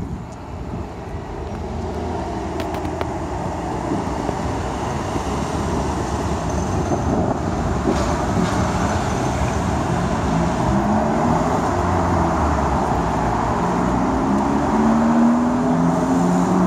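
Street traffic noise under an approaching engine that revs up in repeated rising sweeps as it shifts through the gears, getting louder toward the end: a Polaris Slingshot's four-cylinder engine accelerating toward the flyby.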